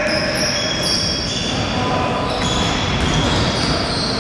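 Basketball game sounds: basketball shoes squeaking on the court, many short high squeaks overlapping, over steady crowd noise.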